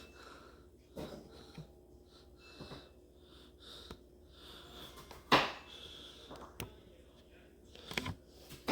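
Quiet small room with a person's faint breaths and sniffs, and one sharp click about five seconds in.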